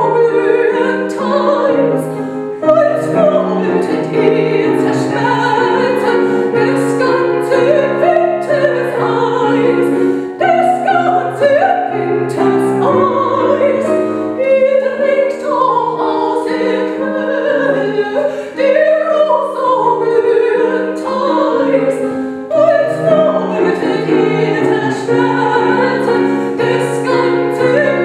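Several voices singing together in a classical, operatic style, long held notes with vibrato.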